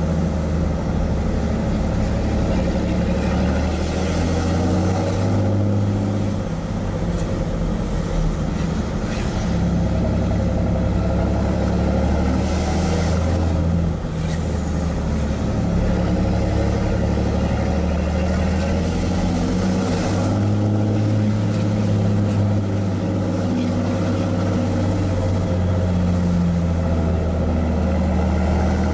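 Straight-piped 6.7L Cummins inline-six turbo diesel of a 2010 Dodge Ram 3500, heard from inside the cab, running under load as the truck climbs a grade. Its 5-inch side-exit exhaust is loud, with two brief dips in level about six and fourteen seconds in.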